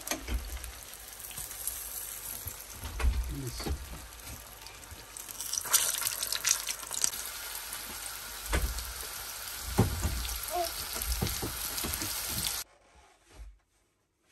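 Flour-coated fish pieces deep-frying in hot oil, with a steady sizzle and a few knocks and clinks of a utensil in the pan as the pieces are lifted out. The sizzling cuts off suddenly near the end.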